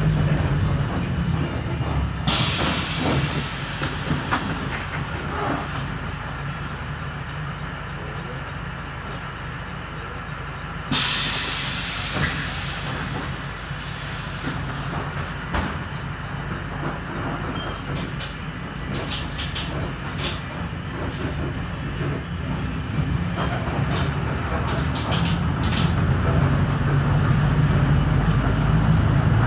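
Mercedes-Benz OF 1721L city bus's four-cylinder diesel engine running, with two sharp compressed-air hisses, one about two seconds in and one about eleven seconds in, each tailing off. A few short clicks come in the second half, and the engine grows louder near the end.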